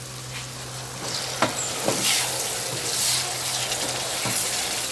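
Liver pieces sizzling as they fry and sear in a pan, the hiss growing louder about a second in, with a few brief knocks of the stirring spoon against the pan.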